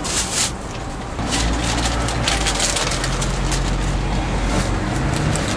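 Paper crepe sleeve crinkling and rustling in gloved hands as a folded crepe is wrapped, over a steady low motor hum that comes in about a second in.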